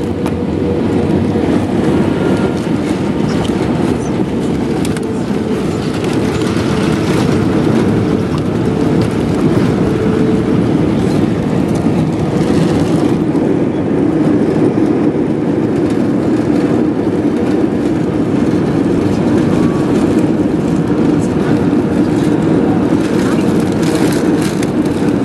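Jet airliner cabin noise during the landing: a steady, loud rush of engines and airflow with a low, even hum.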